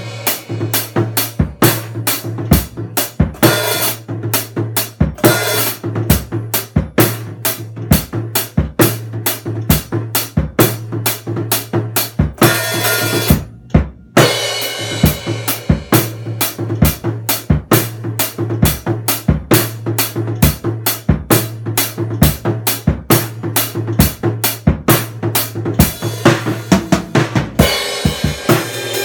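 Acoustic drum kit played in a steady groove: bass drum, snare and cymbals at about three strokes a second. The playing stops briefly about halfway through, then picks up again, with cymbals washing more heavily near the end.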